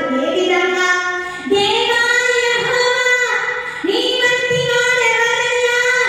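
A woman singing a Telugu Christian worship song in long held notes. A new phrase starts about a second and a half in and again about four seconds in.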